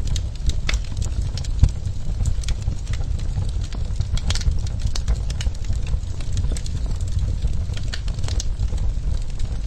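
Wood fire crackling in a fireplace: irregular sharp pops and snaps over a steady low rumble of the flames, one pop standing out about a second and a half in.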